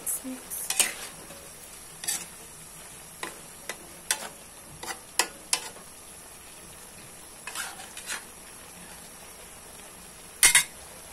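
Metal spatula stirring food in an aluminium wok, scraping and tapping against the pan in irregular strokes, with a louder knock about ten and a half seconds in.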